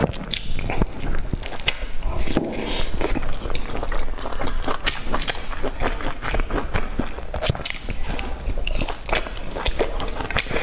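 A person biting and chewing pieces of sauce-coated fried pork, with many quick, irregular clicks and crackles from the mouth and food.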